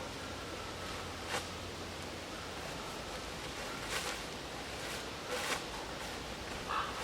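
Steady background hiss with four short rustling crunches spread through it, at about one, four, five and a half and near seven seconds.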